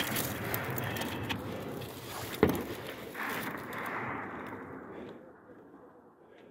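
Rustling and scraping handling noise close to a phone's microphone as the person filming moves among rocks, with one sharp crack about two and a half seconds in. The noise fades away over the last couple of seconds.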